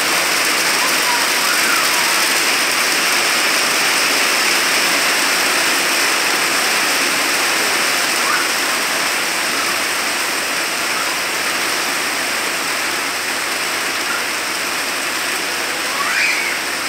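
Heavy rain falling steadily, a loud even hiss, with a few faint brief voices over it, one rising near the end.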